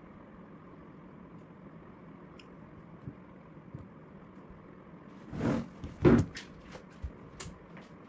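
Quiet steady room hum, then from about five seconds in a few sudden knocks and clunks, two loud ones then smaller taps: a phone being handled and set down on a wooden desk.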